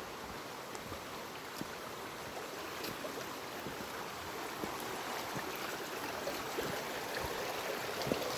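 Steady rush of a stream flowing through forest, slowly getting louder, with a few faint ticks over it.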